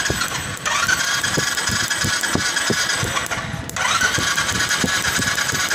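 Electric starter motor cranking the Royal Enfield Classic 350's single-cylinder engine in repeated presses: the starter whine rises each time it spins up, over slow low beats from the engine turning over. It breaks off briefly about half a second in and again near four seconds, then starts again. The cranking is a test of whether spark now reaches the plug wire after the loose CDI connector pins were tightened.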